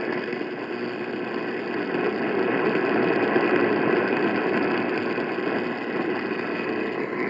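Steady AM radio static and hiss from a broadcast receiver, with no voice during a pause in the emergency alert.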